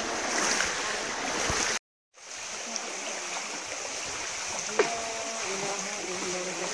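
Steady running-water ambience with a high, even insect drone. The sound cuts out completely for a moment about two seconds in, and there is one sharp click about five seconds in.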